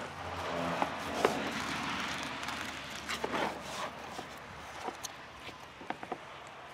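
Fillet knife clicking and scraping against a plastic cutting board as a walleye is filleted, in short separate strokes. Under it is a low outdoor rumble that swells over the first two seconds and then fades.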